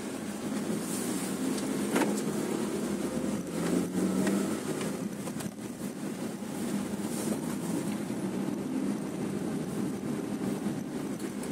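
Car running along a road heard from inside the cabin: a steady low hum of engine and tyre noise, with a few brief knocks around two and four seconds in.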